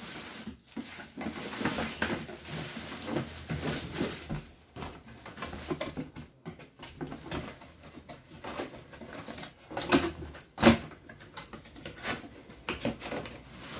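Cardboard box and plastic bag rustling, crinkling and scraping as a footbath is unpacked, with two louder knocks of cardboard about ten seconds in.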